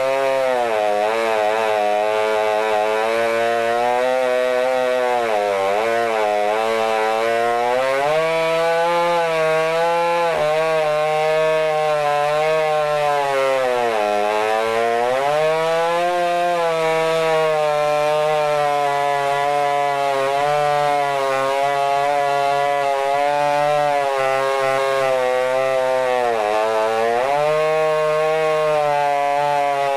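Modified Stihl MS661 two-stroke chainsaw ripping lengthwise through a log in a chainsaw mill at full throttle. Its engine note sags under the load of the cut and picks back up several times, most deeply about 6, 14 and 27 seconds in.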